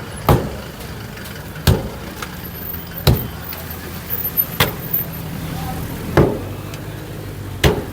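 Demolition blows striking a building's structure, six sharp hits evenly spaced about one and a half seconds apart, over a steady engine running.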